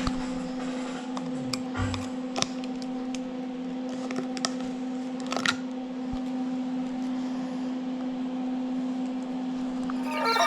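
Steady electric hum with scattered light clicks and taps; the hum stops at the very end.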